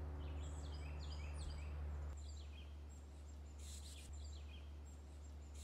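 Birds chirping: short high calls repeated every half second or so, over a steady low hum.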